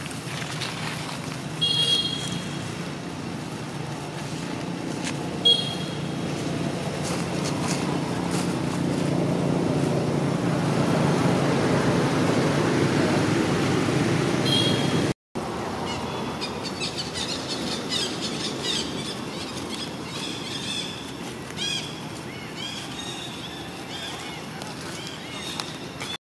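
Outdoor ambience dominated by a low engine rumble of a passing motor vehicle, swelling over the first half. Brief high squeaks stand out twice early on. After an abrupt cut, the rumble is gone, leaving fainter background with short, high chirping calls.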